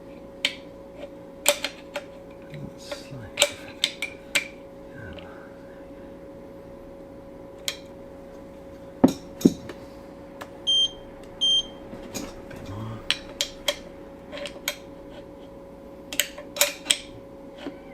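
Hand tools clicking and knocking on a Ducati 848 engine as a timing belt tensioner is adjusted, with two short high electronic beeps about 11 seconds in from the belt tension meter taking a reading. A steady faint hum runs underneath.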